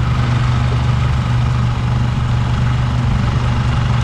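Small 6 hp outboard motor, new and still being broken in, running at a steady pitch and pushing the micro skiff across the water.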